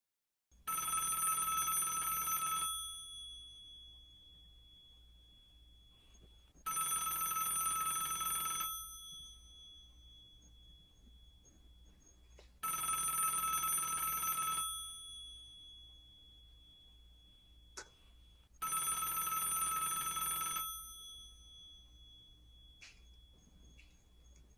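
Telephone ringing four times, each ring about two seconds long, starting about every six seconds, and each fading away afterward. There is a short click between the third and fourth rings.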